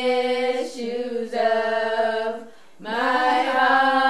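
A single voice singing unaccompanied in long, held notes, with a short break for breath about two and a half seconds in.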